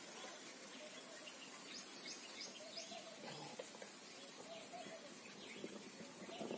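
Faint outdoor background noise with a run of short, high bird chirps in the first half.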